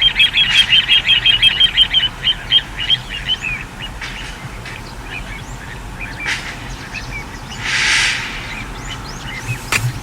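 Little ringed plover calling a fast run of short, high, repeated notes, about six or seven a second, that trails off about three and a half seconds in. Scattered faint chirps follow, and a short hissing rush about eight seconds in.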